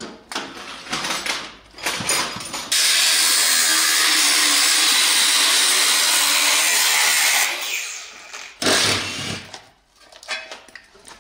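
Cordless angle grinder cutting into the steel underside of a car, with a steady cut lasting about five seconds that starts sharply about three seconds in. Shorter bursts of grinding noise come before it, and one more comes near the end.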